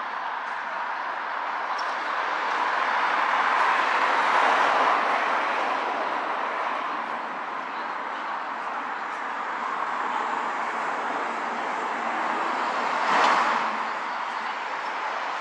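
City street traffic noise, with vehicles passing: it swells about four seconds in and peaks briefly again near the end.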